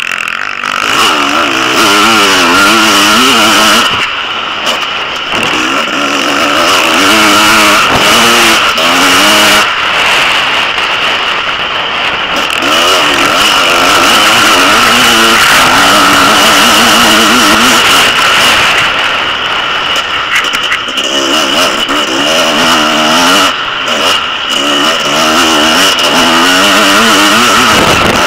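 Off-road motorcycle engine heard from a helmet-mounted camera, revving up and dropping back again and again as the rider accelerates and shifts over the dirt track.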